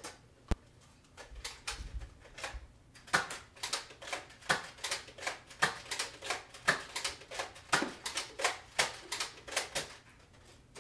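A quick, uneven run of sharp clicks and taps, two or three a second, going on for most of the stretch.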